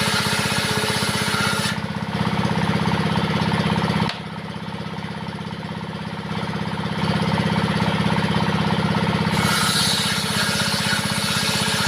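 Diesel engine running steadily, driving a homemade table saw. The saw blade ripping wood adds a hiss over the engine during the first two seconds and again from about two thirds of the way in.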